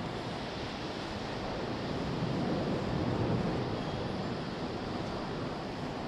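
Strong wind blowing across the microphone: a steady rushing noise that swells a little in the middle.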